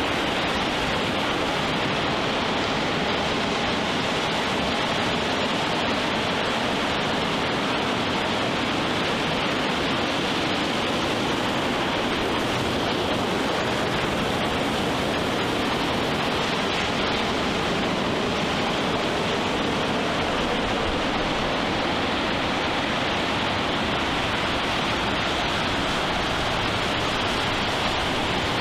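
Ocean surf washing onto a sandy, rocky beach: a steady, even rush of noise with no single wave break standing out.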